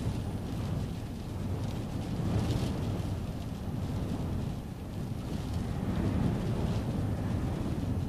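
Storm wind gusting against a stopped car, heard from inside the cabin as a low rumble that swells and eases, loudest about two and a half seconds in and again near six seconds.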